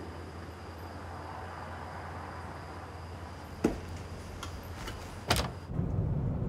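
Two sharp knocks about a second and a half apart over a low steady hum. About six seconds in, a car's steady low running rumble takes over, heard from inside the cabin.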